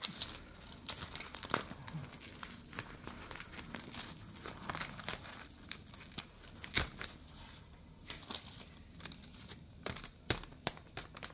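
Paper envelope crinkling and tearing in irregular rips and crackles as an African grey parrot bites and shreds it with its beak.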